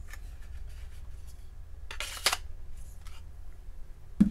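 Steel knife blade sliding into a hard plastic sheath, with one scraping slide about two seconds in among light handling clicks and rustles.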